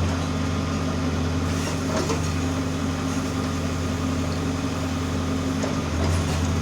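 Case 570T backhoe loader's diesel engine running steadily, getting a little louder near the end.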